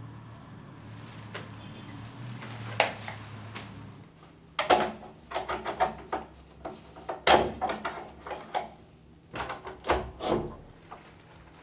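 A door being worked in a quiet room: a single click, then a run of sharp clicks and knocks of a handle, latch and door lasting about six seconds, the loudest about halfway through. A steady low room hum runs under the first few seconds.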